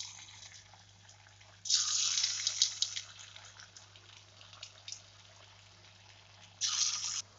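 Hot oil in a steel kadai sizzling as balls of spinach batter for bondas are dropped in by hand: a loud hissing sizzle about two seconds in that dies down into light crackling, and a second short sizzle near the end that cuts off suddenly.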